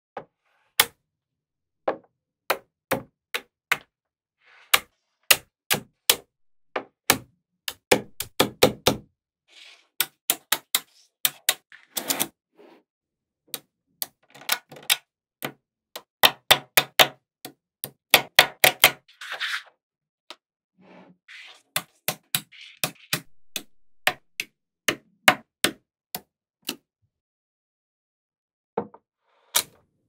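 Small magnetic balls clicking and snapping together as panels of them are pressed and joined, in sharp irregular clicks, often in quick clusters, with a faint rustle of the balls being handled in places.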